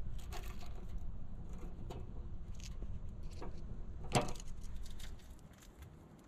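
Light clicks and taps of small items being handled on a camp stove top, with one sharper click about four seconds in, over a steady low rumble that fades near the end.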